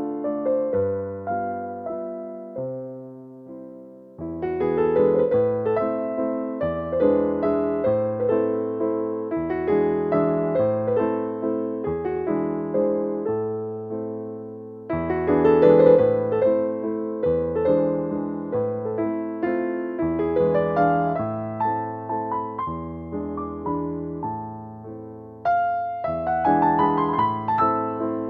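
Background piano music: a slow melody of struck notes that ring and fade, over a low accompaniment.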